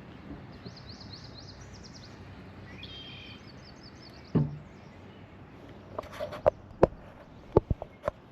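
A small bird sings twice in the first half, each time a quick series of high chirping notes. About four seconds in comes a single loud dull thump, then a run of sharp knocks and clicks near the end.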